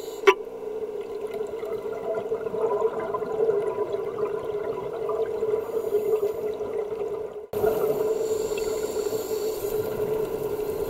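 Underwater sound as picked up through a camera's housing: a steady, muffled hum over water noise, with one sharp click near the start. It breaks off for a moment about seven and a half seconds in and then carries on.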